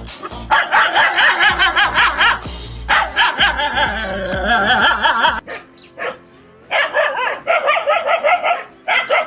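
A dog barking and yipping repeatedly over background music. The music cuts off about halfway through, and the barking carries on alone.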